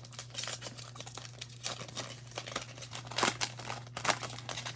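Crinkling and tearing of a foil trading-card pack wrapper as a Panini Prizm Draft Picks pack is torn open and handled, in many irregular crackles.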